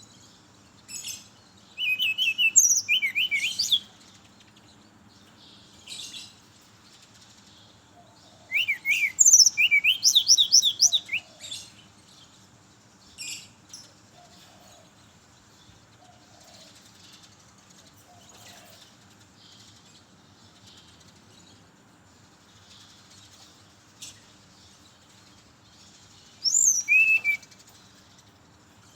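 Brown-chested jungle flycatcher singing: three bursts of rapid, sharp, slurred high whistles, with single short notes in the pauses between them.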